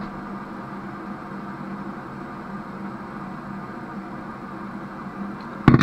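Butane blowtorch flame burning with a steady hiss while it heats a copper pipe joint for soldering. A sharp clack comes near the end.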